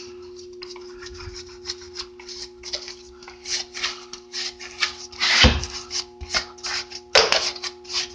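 A wet Scotch-Brite pad on a battery-charger lead is scrubbed back and forth over a rusty steel truck frame in a vinegar and rock-salt slurry, electrolytic rust removal, giving a quick run of scraping rub strokes. Two strokes, about five and seven seconds in, are louder. A steady low hum sits underneath.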